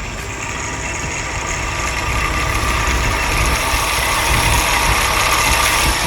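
Truck engine running steadily, with a rushing noise that builds and then drops away near the end.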